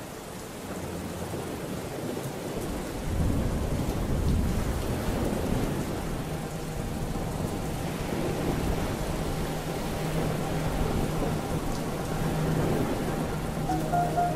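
Steady rain with low, rolling thunder that swells about three seconds in. Faint sustained music tones creep in during the last few seconds as a new track begins.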